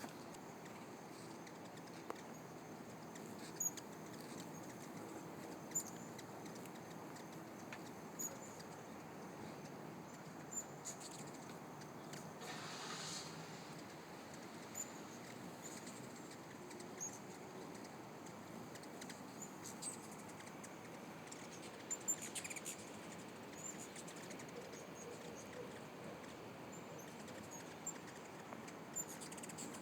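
Hummingbirds chirping at feeders: many short, high chips scattered irregularly, with a brief rushing sound about halfway through.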